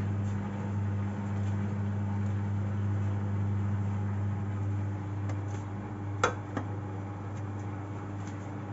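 Arctic front-loading washing machine running on a cottons 60° cycle, with a steady low hum and water in the drum. A sharp click sounds about six seconds in.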